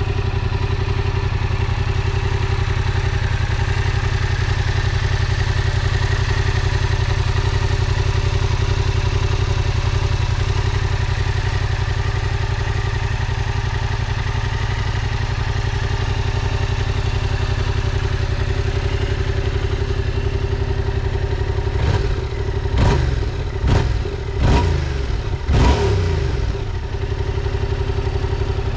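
Yamaha MT-07's 689 cc parallel-twin engine idling steadily through its stock exhaust. Near the end, a quick run of about five short throttle blips rises and falls before it settles back to idle.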